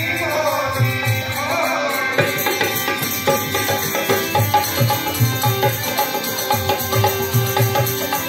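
Bhajan performed live: a man's sung line with wavering pitch ends about two seconds in, then harmonium and hand drums play on with a steady drum rhythm.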